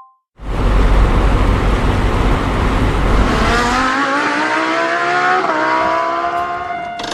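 A vehicle passing with a heavy low rumble and, from about three seconds in, a whine that rises steadily in pitch, dips briefly, and climbs again before cutting off near the end.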